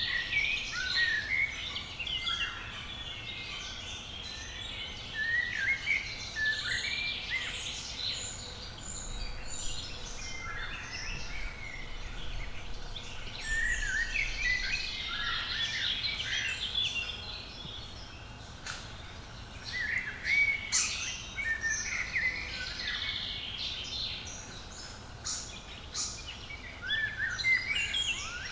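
Several songbirds singing and calling over one another in a woodland chorus: many short, quick, rising and falling phrases, with a few sharp clicks in the later part.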